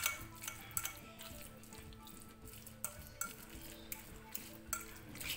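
Metal fork mashing tofu in a glass bowl: irregular sharp clinks as the fork strikes the glass, with soft scraping between them. Faint background music runs underneath.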